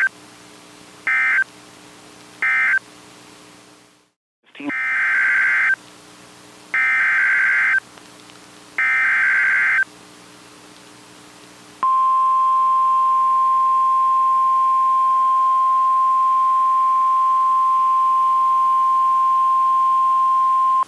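NOAA Weather Radio Emergency Alert System tones: three short buzzy SAME data bursts marking the end of one alert, a brief dropout, then three longer data bursts that open a new alert header. About twelve seconds in, the steady single-pitched Weather Radio warning alarm tone starts and holds for about nine seconds, announcing the next warning.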